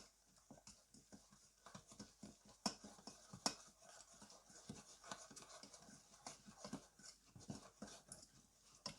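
Faint, irregular clicking and scraping of a utensil stirring a milk, sugar and cornstarch mixture in a pot.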